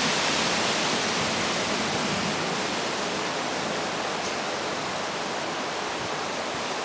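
Steady rushing noise of a severe thunderstorm's wind and rain in the trees, even and without any distinct crack or thump, easing slightly in level.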